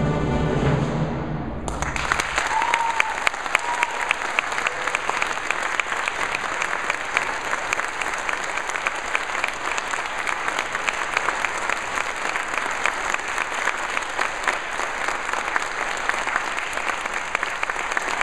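A symphony orchestra's final held chord stops about a second and a half in, and the audience breaks into sustained applause.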